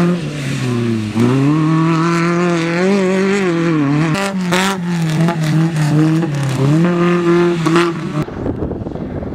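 Off-road race buggy engine revving hard, its pitch climbing and dropping again and again as the throttle is worked, with a few sharp clicks in the middle. About eight seconds in it cuts off abruptly, and wind noise on the microphone takes over.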